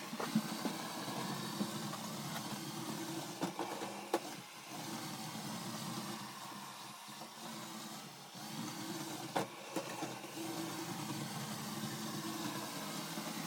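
Roborock S8 Pro Ultra robot vacuum running: a steady hum of its suction motor and brushes, with a few short clicks or knocks along the way.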